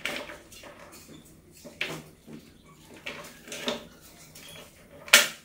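Rats scrambling on a plastic water-bottle trap set on a clay jar and dropping into it: a few scattered knocks and rattles, the loudest near the end.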